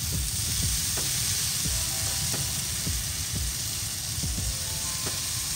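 Shrimp skewers sizzling on a hot perforated grill grate, a steady high hiss over a low rumble, with a few light clicks.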